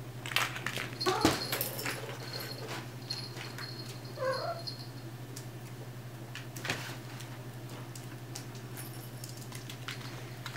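Two short pet-animal calls, the first about a second in, gliding up and then down, the second about four seconds in, over scattered clicks and scuffles as a puppy and a cat play on a hard floor.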